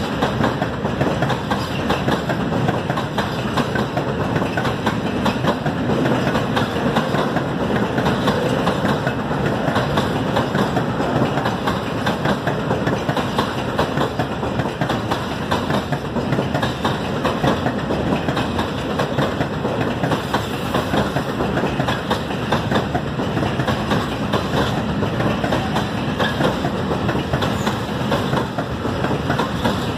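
A freight train of open-top wagons rolling past, a steady rumble of steel wheels on the rails with a clickety-clack over the rail joints.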